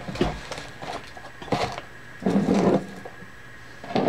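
Packaging and gift boxes being handled and moved on a wooden table: a few short rustles and knocks, the longest a little after two seconds in.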